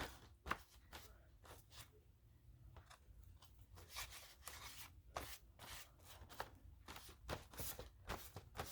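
Faint handling of magazine paper: scattered light crinkles and taps as cutouts are moved and pressed down, sparse at first and more frequent in the second half.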